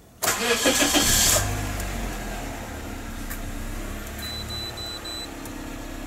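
A Toyota Corolla's four-cylinder engine cranked by the starter for about a second, catching and settling into a steady warm idle around 1000 RPM that holds without stalling while the ECU relearns after a battery disconnect. Four short high beeps sound about four seconds in.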